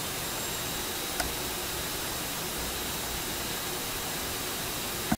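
Steady hiss of the cooling fans of an Avaya G430 gateway running while its S8300 server boots, with a faint high whine. There is a single click about a second in.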